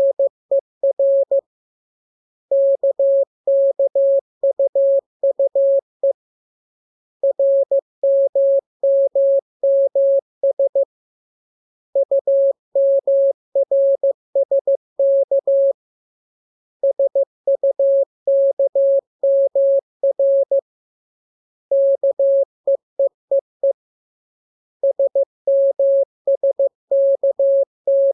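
Morse code keyed as a single clean tone a little above 500 Hz, sent in groups of a few seconds each with about a second's pause between groups. It is a practice radiogram built from the letters K, M, U, R, E and S.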